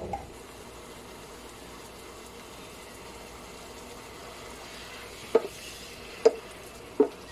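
Meat and green beans sizzling steadily in a stainless steel pan, stirred with a wooden spatula that knocks against the pan three times in the last couple of seconds.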